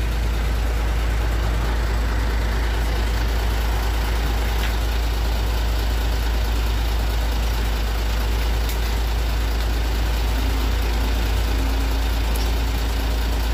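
Vehicle engine idling steadily, with an even hiss of fuel being pumped through a nozzle into the tank.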